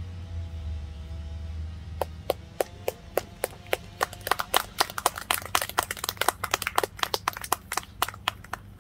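A small crowd clapping: a few claps about two seconds in, building into scattered applause that stops near the end.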